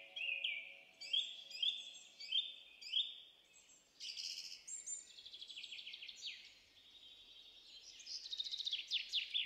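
Small birds singing: a run of quick down-slurred chirps, about two a second, then varied calls and a fast trill near the end.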